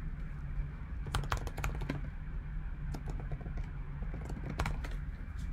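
Typing on a computer keyboard: a quick run of keystrokes about a second in, then a few scattered key presses, over a steady low hum.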